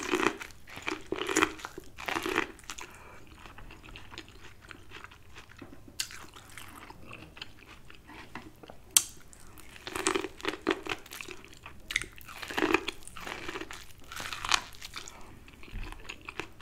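Corn on the cob being bitten and chewed: crisp crunching bites as kernels are torn off the cob, in two spells, at the start and again from about ten seconds in, with quieter chewing and a few single sharp clicks between.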